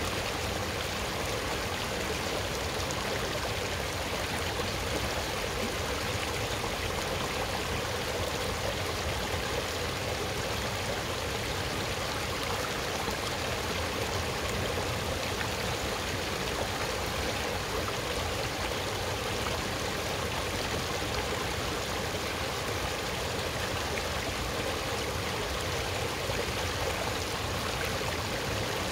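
Shallow mountain stream running over stones and small cascades: a steady rush of water.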